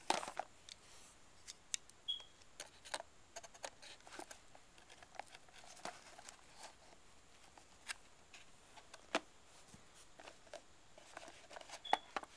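A cardboard gift box and its paper insert being handled: scattered light clicks, taps and soft rustles, with a brief high squeak twice.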